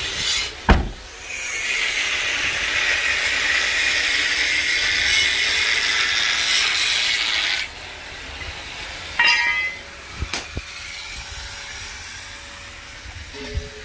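A solid thump, then a loud, steady hiss that cuts off suddenly about halfway through, from the frame-repair work in the truck yard. A short metallic clank and a couple of knocks follow.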